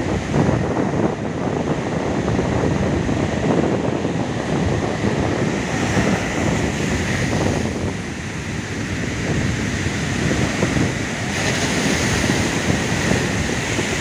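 Ocean surf breaking and washing up a sandy beach, with wind buffeting the microphone.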